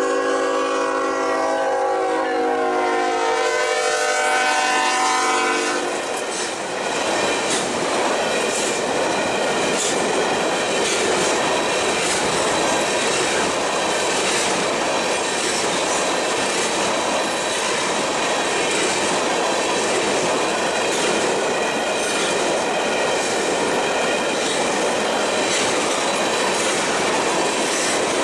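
Diesel locomotive's multi-chime horn sounding a chord for about six seconds and cutting off, then the train rolling past with a steady rumble and clatter of wheels over the rails.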